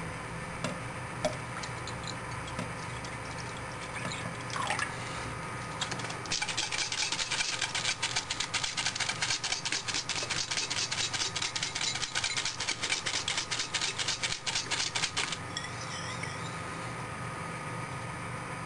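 Squeeze wash bottle squirting a jet of rinse liquid into a glass beaker to wash out dark residue: a hiss with rapid crackle, from about six seconds in, lasting about nine seconds. A steady machine hum sits underneath.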